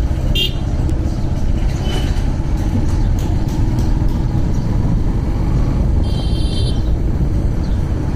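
Yamaha motorcycle running at low speed, its engine a steady low rumble under wind and road noise. A brief high-pitched sound comes in about six seconds in.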